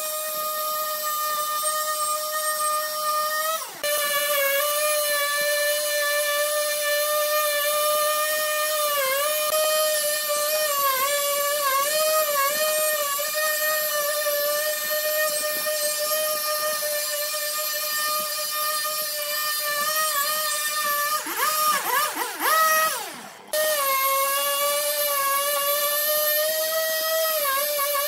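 Husqvarna chainsaw running at high revs as it cuts along a log, its whine dipping in pitch as the chain takes load. The revs fall briefly about four seconds in, swing down and up from about 21 seconds, and cut out for a moment before it runs steadily again.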